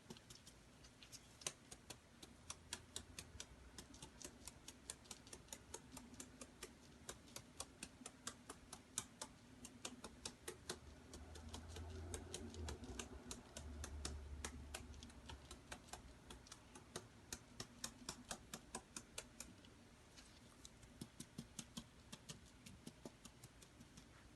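Faint, rapid light clicking, about three ticks a second, from a sieve or sifter being worked to dust powdered sugar over a cake. The clicking pauses briefly near the end, and a low hum rises for a few seconds midway.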